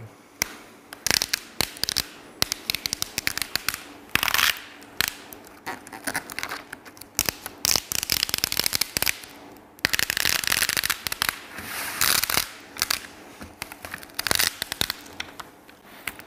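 Application tape being peeled off vinyl lettering stuck on a banner: irregular crackling and ticking as the adhesive lets go, with a few longer ripping stretches, the longest about ten seconds in.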